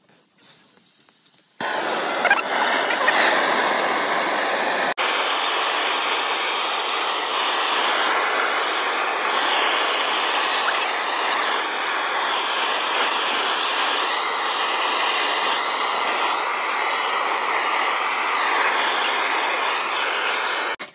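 Gas blowtorch flame hissing steadily as it singes the skin of a plucked whole chicken. It starts about a second and a half in, with a brief break near five seconds.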